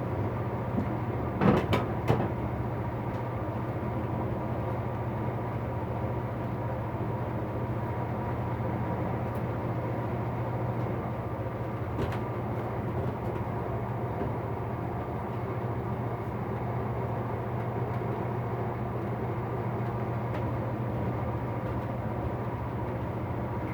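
Electric fan running with a steady hum, with a few short knocks and clinks of tools being handled about two seconds in and again near the middle.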